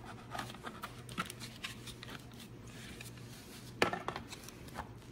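Hard plastic parts clicking and knocking as 3D-printed vacuum attachment pieces are handled and fitted together, with one sharper click about four seconds in.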